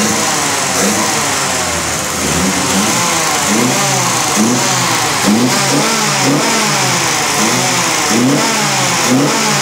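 Lancia Appia Zagato's narrow-angle V4 engine running and being revved by hand at the carburettor linkage. The revs rise and fall in repeated blips, about one a second, from a couple of seconds in.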